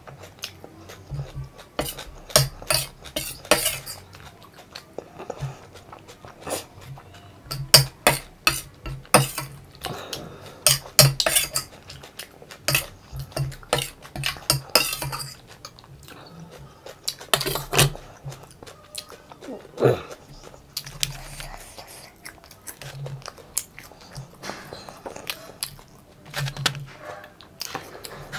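Steel spoon clinking and scraping against a steel plate in many short, sharp clicks, with chewing in between.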